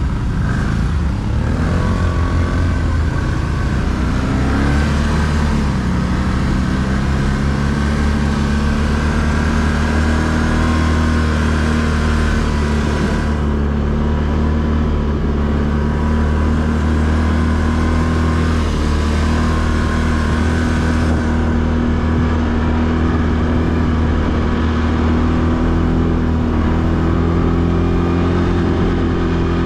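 ATV engine running steadily under way. Its pitch wavers in the first few seconds, holds steady, and climbs a little near the end.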